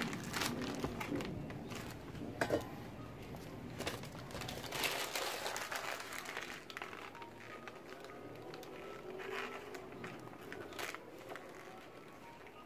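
Crumpled magazine paper crinkling as it is pressed and dabbed onto a wet spray-painted canvas, in irregular crackles.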